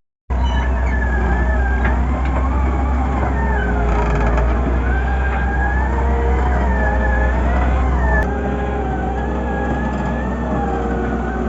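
Excavator running, a steady low engine drone under a high whine that wavers slowly up and down in pitch. The deepest part of the drone drops away a little after eight seconds.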